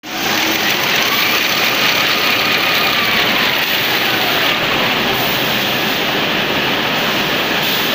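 Toilet-tissue log saw cutting line running: a loud, steady mechanical noise from the machinery, with faint whines that rise and fall in pitch.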